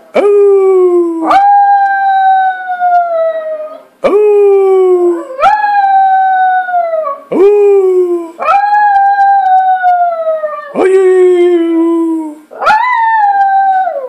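Small terrier-type dog howling: a run of about eight long howls, each jumping up sharply at the start and then sliding slowly down in pitch, with short breaks between.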